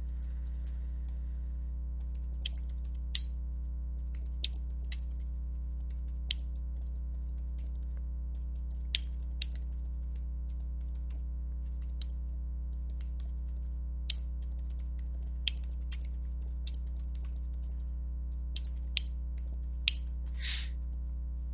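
Computer keyboard being typed on: irregular, separate key clicks over a steady low electrical hum.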